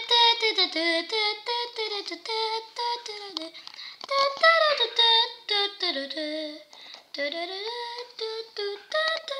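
A child singing wordlessly in a high voice: short notes one after another, sliding up and down in pitch, with a brief pause about seven seconds in.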